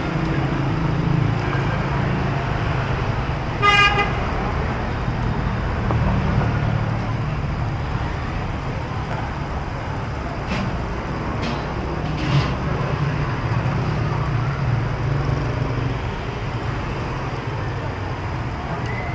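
Steady rumble of street traffic, with a vehicle horn giving one short toot about four seconds in, and a few light clicks around the middle.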